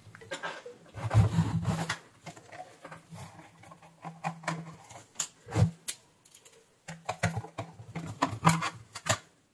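Irregular clicks, scrapes and rattles of a screwdriver taking the screws out of a switch-mode power supply's sheet-metal case, then the metal cover being handled to open it.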